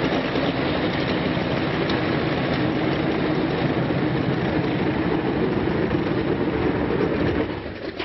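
Loud, steady engine noise that starts abruptly and drops away about seven and a half seconds in.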